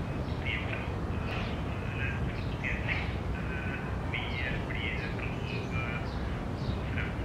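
Birds outside calling in short, repeated chirps, a couple every second, over a steady low background hum.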